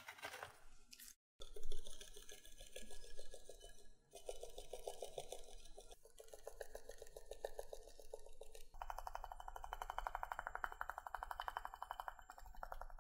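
Powdered sugar being sifted through a fine mesh sieve, the sieve shaken or tapped in a fast, even rattle that comes in runs and is loudest in the last few seconds.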